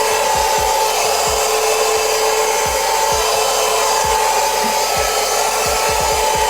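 Eureka Forbes handheld 12 V car vacuum cleaner running steadily, a motor whine over a loud rushing of air, with irregular low knocks as it sucks up dirt and small stones from the car floor, the nozzle fitted directly without an adapter.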